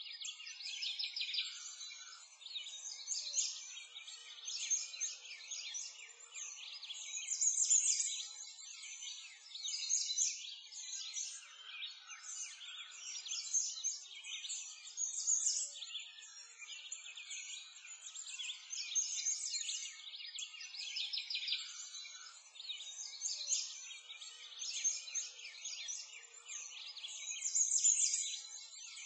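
A dense chorus of many small birds chirping and singing without a break, all high-pitched, with nothing low underneath.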